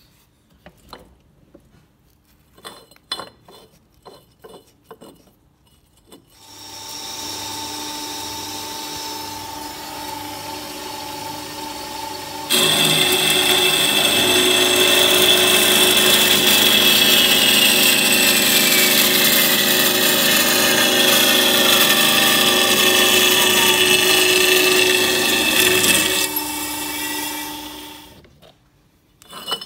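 Metal-cutting band saw making an angled cut through a round steel tube. A few knocks as the tube is set, then the saw starts about six seconds in and runs with a steady hum. Halfway through, the blade bites into the tube and cuts loudly, with a ringing tone that slides down in pitch. Near the end the cut finishes and the saw runs down.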